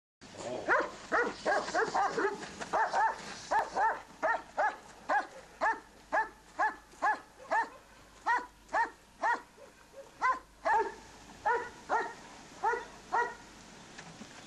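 Czech working-line German Shepherd barking in a long steady run, about two barks a second, stopping shortly before the end.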